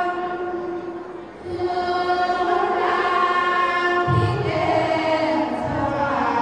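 Group of women singing sorapan, an Isan Thai Buddhist devotional chant, together in long held, melodic lines. The singing eases off for a breath about a second in, then carries on.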